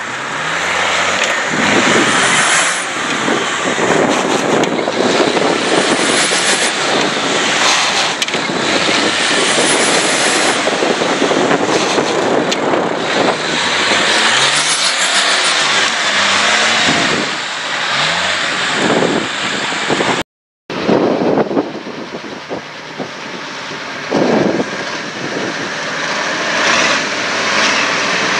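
Diesel 4x4 engine working hard off-road, its revs rising and falling again and again. A dense rush of noise runs under it. The sound cuts out completely for a moment about twenty seconds in.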